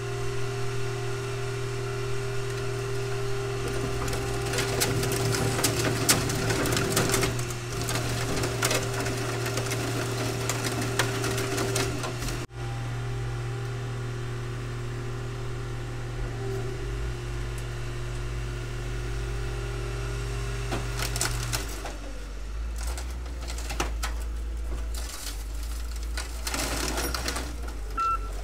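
Heavy machinery running with a steady engine hum as a wheel loader sets a scrap car onto the bed of a car crusher. The hum changes to a deeper drone about two-thirds through, and scattered metal clunks and scrapes follow as the car is set down.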